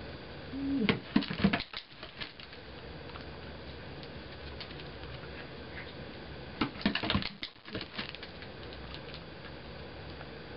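A cardboard box being bumped and tapped by a Shetland sheepdog: two short bursts of quick taps and light thumps, about six seconds apart, over a steady hiss.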